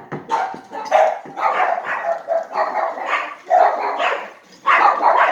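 A dog barking repeatedly, about two loud barks a second.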